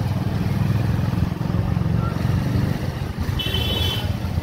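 Low, steady rumble of a moving vehicle, with wind buffeting the microphone. A brief high-pitched beep sounds about three and a half seconds in.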